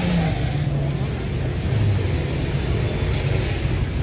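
Steady low rumble of city street traffic, with a hiss over it.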